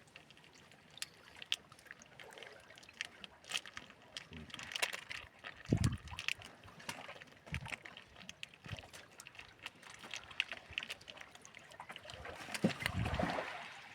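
Water splashing and dripping in small scattered clicks and trickles, with two dull low thumps, one about six seconds in and a longer one near the end.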